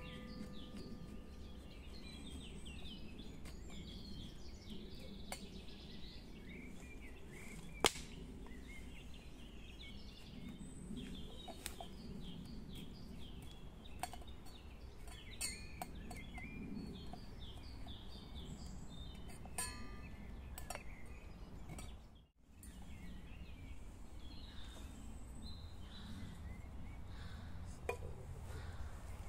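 Woodland birds chirping and calling over a steady low background rumble, with one sharp click about a quarter of the way through.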